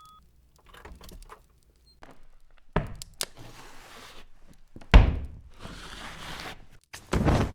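Foley sound effects: scattered knocks and shuffling, a sharp thunk near three seconds, and a loud heavy thud about five seconds in, with spells of rustling, dragging noise between and after.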